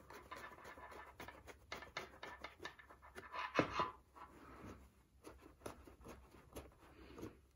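Faint small clicks and rubbing as fingers turn the brass tightening screw of a wooden embroidery hoop clamped onto a cap, with a slightly louder rub about three and a half seconds in.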